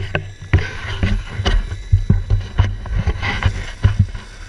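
Longboard wheels rolling over rough asphalt, heard through a camera fixed to the deck: a low rumble with many sharp, irregular knocks and jolts from the board.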